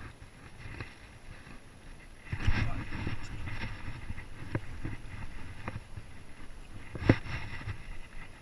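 Handling noise from fishing with a baitcasting rod and reel, with clothing brushing the chest-mounted camera: a rush of rustling about two seconds in, then several sharp clicks, the loudest about seven seconds in.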